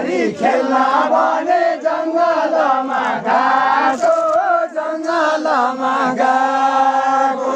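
Khaijadi folk singing: a group of voices chanting a song together, ending on long held notes near the end.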